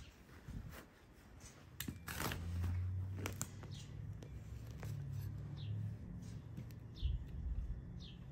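Small spade cutting into lawn sod and soil, with a few crunching stabs as the plug of turf is pried up. Short falling bird chirps repeat every second or two, over a low steady hum.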